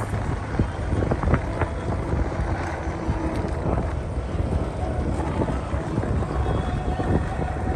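Wind buffeting the microphone over the low, steady running of a boat under way on the water.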